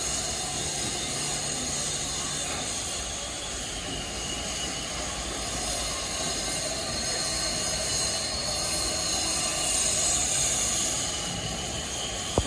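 Steady construction-site noise: a continuous hiss with faint high whining tones over it.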